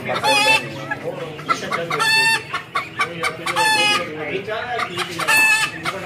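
A chicken calling four times: short, wavering, high-pitched calls, about one every one and a half to two seconds, over a low murmur of background voices.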